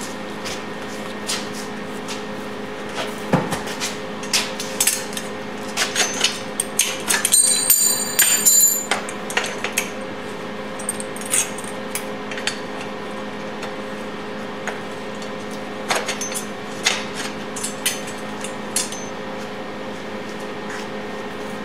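Steel parts of a homemade hoist's boom pivot being fitted by hand: scattered metal clinks and knocks of a bolt, washer and pin going into the pivot plates, busiest from about four to nine seconds in, a few ringing briefly. A steady hum runs underneath.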